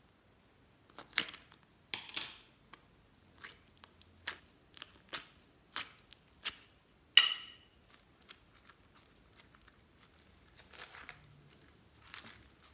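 A thin plastic slime container being handled and sticky slime peeled out of it by hand. The result is an irregular run of crackles, sticky pops and plastic clicks, starting about a second in. The loudest is a sharp snap with a brief ring about seven seconds in.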